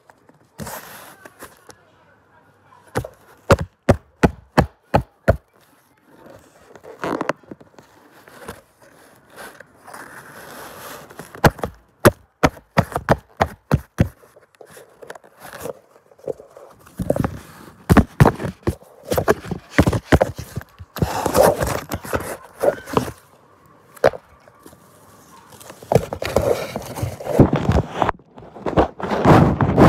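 A series of sharp knocks and thuds: a quick run of about eight knocks a few seconds in, then scattered knocks, and denser, louder stretches of thudding and rustling in the second half.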